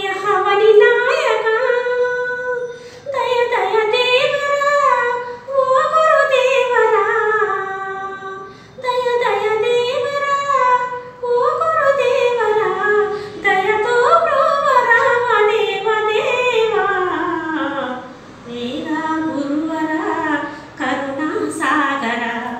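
A woman singing a Telugu devotional song solo and unaccompanied, in ornamented melodic phrases of two to three seconds with short breaths between them.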